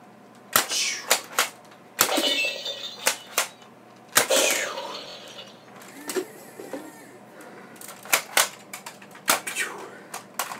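Plastic clicks and knocks of a Nerf blaster being primed and fired at electronic pop-up targets. Two longer sounds about two and four seconds in are the targets' sound effects as they go down.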